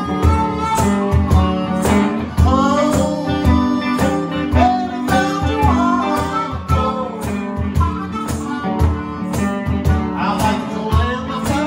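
Live blues band: a man singing over a semi-hollow electric guitar, with a harmonica playing into a microphone and a cajón keeping a steady beat.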